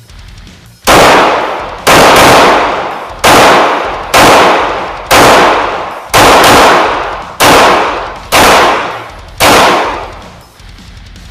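An FN 509 Tactical 9mm pistol fired without a suppressor: about ten loud shots at roughly one a second of slow aimed fire, two of them in quick pairs, each followed by a ringing echo off the range walls.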